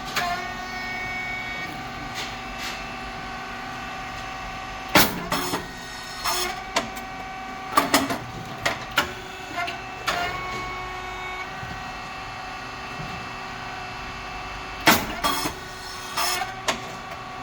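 SYP9502 puffed rice cake machine running: a steady hum from its motor, pump and fan, broken by loud, sharp bangs about every five seconds, with smaller knocks and clatters between, as the heated moulds open and the rice cakes pop out.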